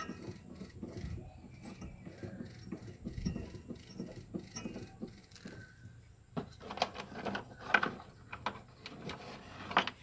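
Metal wrench clicking and scraping on a bolt as the spin-dryer drive of a single-tub washing machine is tightened, with a run of sharper metallic clinks in the last few seconds.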